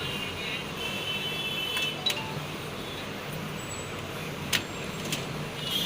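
Sharp plastic clicks and high squeaky creaks as the locking clips of a desktop CPU cooler fan are worked loose, over a steady background noise.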